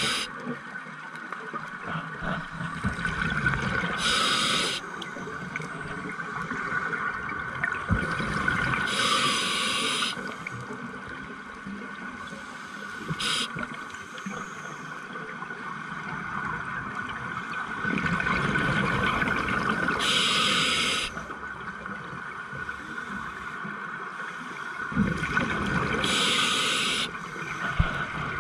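A scuba diver breathing through a regulator underwater: about four long hissing breaths, each around a second, with bubbling and gurgling between them.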